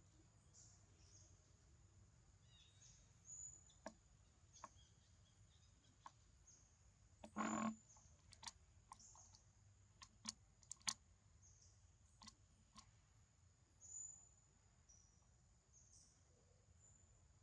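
Quiet outdoor background with faint, high-pitched chirps recurring throughout and scattered sharp clicks. About seven seconds in comes one short, loud burst of noise lasting under half a second.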